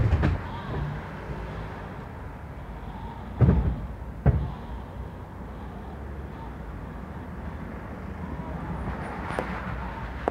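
City street background: a steady low rumble of traffic. It is broken by a dull thump at the start and two more at about three and a half and four seconds in.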